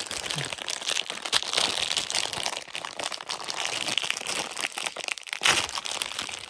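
Crinkly plastic wrapper of a Hostess orange cupcake pack being handled, a dense run of small crackles throughout.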